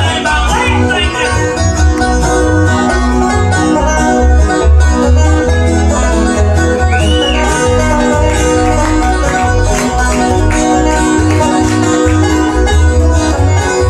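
Live bluegrass band playing an instrumental break, with banjo prominent over guitar and a steady low bass beat.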